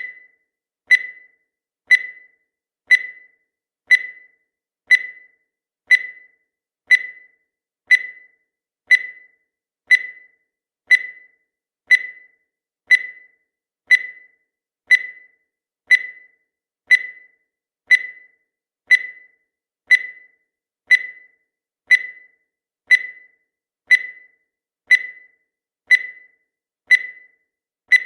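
Countdown timer sound effect: a short, high electronic beep that decays quickly, repeating once a second.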